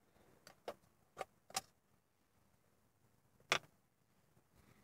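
A few faint clicks and knocks from hands working at a car's center console trim, the loudest about three and a half seconds in.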